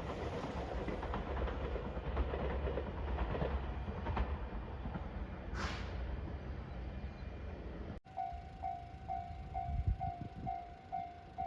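A JR Shikoku limited express electric train passes over a level crossing with a steady rumble and clicks from the wheels over the rail joints. After a sudden cut about two-thirds through, the crossing's warning bell rings at about two strokes a second.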